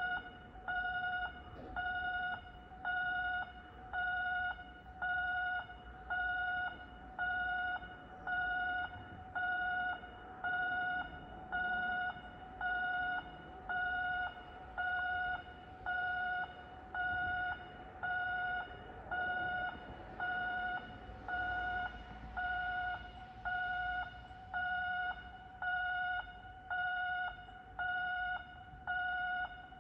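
Electronic railway warning alarm beeping a steady pitched tone about once a second, each beep about half a second long, signalling an approaching train.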